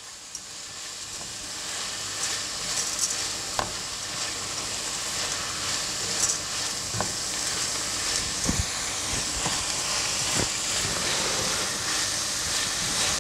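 Rice and chopped vegetables sizzling in hot olive oil in a metal pan while being stirred with a spatula, which knocks and scrapes against the pan now and then. The sizzle builds over the first couple of seconds, then holds steady as the rice toasts in the oil before deglazing.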